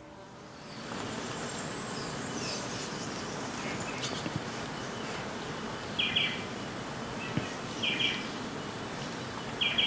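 Outdoor nature ambience fading in over the first second: a steady hiss with a few faint bird calls, then a short, bright chirping call repeated about every two seconds from around six seconds in.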